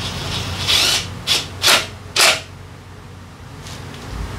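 Cordless power tool run in four short bursts, about a second in and up to just past two seconds, driving bolts on a Honda Forza 350 scooter's drivetrain case.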